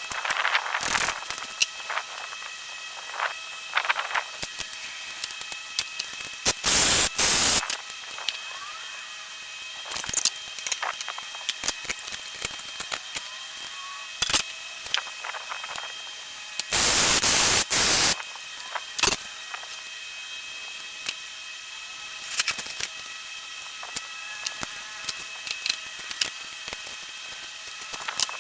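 Engine teardown work: scattered metallic clicks and knocks from tools on engine parts, broken twice by a loud, even rush of noise lasting about a second, around seven seconds in and again around seventeen seconds in.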